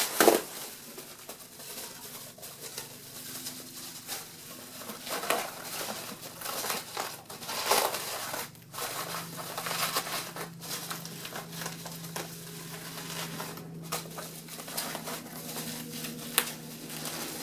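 Plastic bubble wrap crinkling and rustling as sheets are handled, slid into place and tucked in, with irregular rustles and small clicks throughout.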